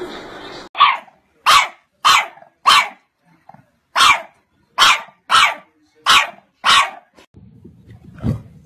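Pit bull puppy barking in short, high yaps: nine in quick succession, with a brief pause after the fourth. A fainter, lower sound follows near the end.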